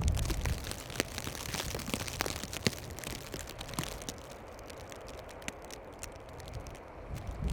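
Blizzard wind and snow: a steady hiss and rumble with many irregular crackles and ticks of wind-driven snow, dense for the first few seconds and thinning out after about four seconds.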